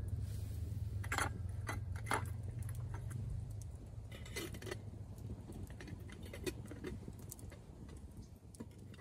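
Metal camp cookware clinking and scraping as a pot is handled and lifted by its gripper handle: a few sharp clinks in the first two seconds and a brief scrape about four seconds in, over a low steady rumble that fades.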